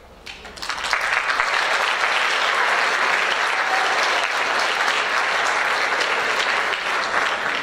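Audience applauding: a crowd of students clapping, swelling up about half a second in and then holding steady.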